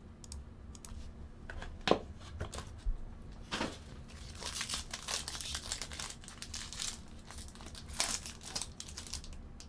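Foil trading-card pack wrapper crinkling as it is handled and torn open by hand, busiest in the second half. A couple of sharp clicks come in the first few seconds.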